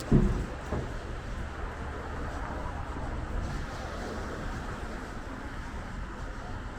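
City street ambience: steady traffic noise from passing vehicles, with one short, loud low thump just at the start.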